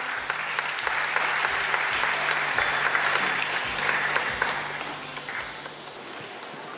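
Crowd applauding, dying down about five seconds in.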